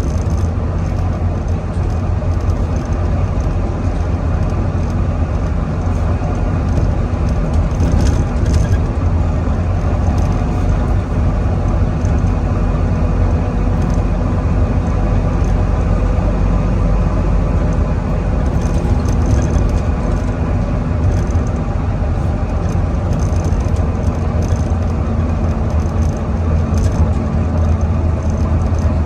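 Volvo B9TL double-decker bus's six-cylinder diesel engine running continuously under load, with a hoover-like whine over its low drone.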